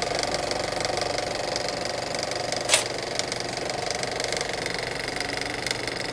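A domestic cat purring steadily, with one sharp click a little under three seconds in.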